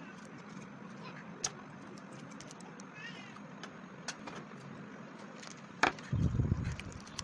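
Eggs being cracked into a ceramic bowl: scattered light clicks and taps of shell and bowl. A sharp crack about six seconds in is followed by a short, louder low rumble as the next egg is broken open over the bowl.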